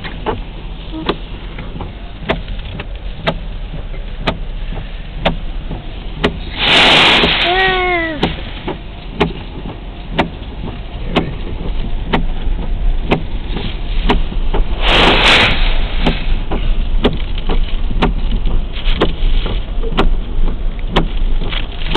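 Storm surf crashing against a seawall, heard from a slow-moving car, with frequent sharp taps of rain and spray on the car. Two loud rushing bursts come about seven and fifteen seconds in, and the surf is louder in the second half.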